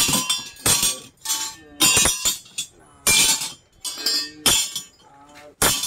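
Plumbing fittings being counted out and dropped one at a time onto a pile, making about ten sharp knocks, roughly one every half second.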